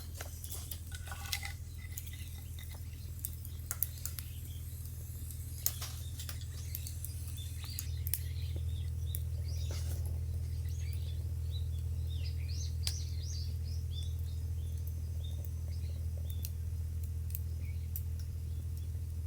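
Small birds chirping, a quick scatter of short high calls that grows busier in the second half, over a steady low rumble. A few sharp clicks sound in the first few seconds.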